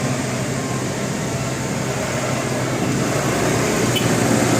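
Steady vehicle engine and road noise, with no horn tune sounding, growing slightly louder near the end, with a single short click about four seconds in.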